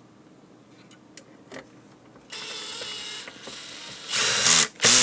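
Electric screwdriver set to its lowest clutch setting, driving a small screw: its motor runs in two spells from a little past halfway, then grows louder near the end as the clutch ratchets, a sign that the screw has seated and the clutch is slipping.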